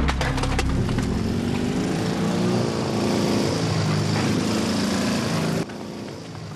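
Motorcycle-with-sidecar engine running, its pitch wavering, after a few sharp knocks at the start. The engine sound cuts off suddenly near the end.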